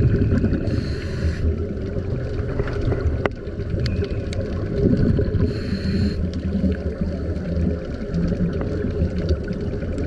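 Underwater sound of a scuba diver breathing through a regulator: two short hissing inhalations about five seconds apart, with bubbling and gurgling rumble between them.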